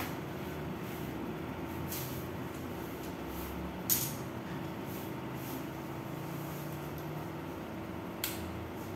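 A few light, sharp clicks from tent poles being handled and flexed, the loudest about four seconds in, over a steady low background hum.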